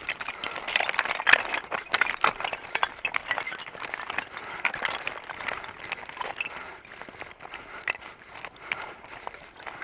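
Mountain unicycle rolling down a rocky trail: a dense, irregular clatter of the tyre crunching and knocking over loose stones, busiest in the first few seconds.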